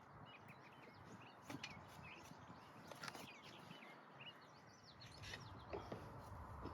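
Faint outdoor quiet with many short, high bird chirps scattered throughout.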